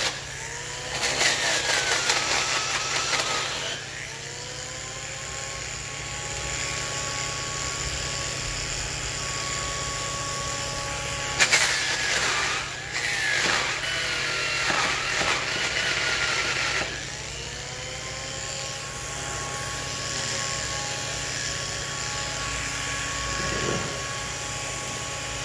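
Angle grinder with a brush wheel working a pine slab: a steady motor whine while it spins free, turning to a louder rough scouring noise with the pitch sagging as it is pressed into the wood, around 1 to 3 seconds in and again from about 11 to 17 seconds.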